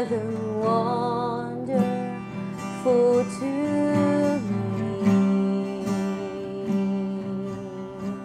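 Worship music: an acoustic guitar strumming while a voice holds long, drawn-out notes at the close of the song.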